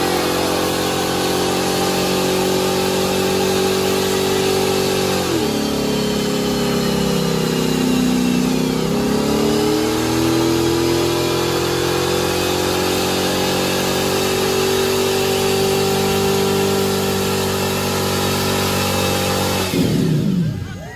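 Chevrolet S10 pickup's engine held at high revs through a tyre-smoking burnout. The revs sag and climb back about five to nine seconds in, then hold steady until the engine is let off sharply near the end.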